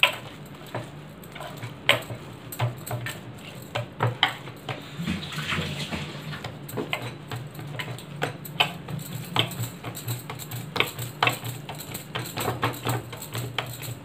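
Hand kneading and pressing a soft minced chicken-and-bread mixture on a wooden chopping board: irregular soft slaps and taps, over a low steady hum.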